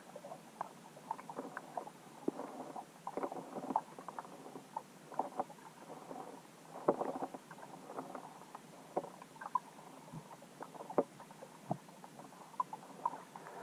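Underwater ambience heard through a submerged camera: a faint steady hiss with irregular small clicks and knocks scattered throughout.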